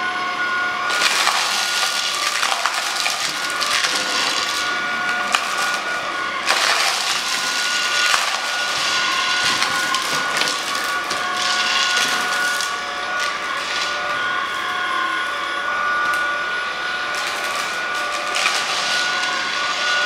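Tineco A11 Hero cordless stick vacuum running on standard suction with a steady high whine, its carpet brush roll sucking up Cheerios with repeated spells of crunching and rattling.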